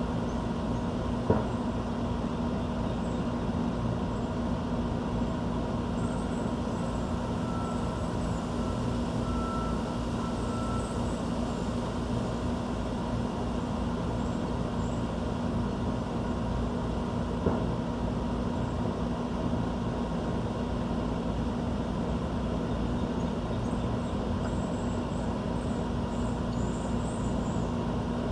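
Steady low rumble of urban background noise with a constant hum, with faint high bird chirps in the middle and again near the end. Two short sharp clicks, one just after the start and one past the middle.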